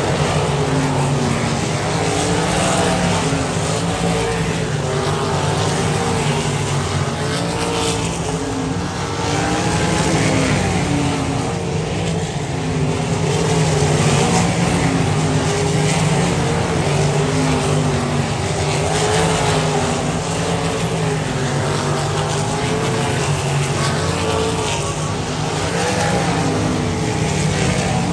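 Several winged dirt-track sprint cars racing around the oval together, their engines rising and falling in pitch as they go off and on the throttle through the turns and down the straights.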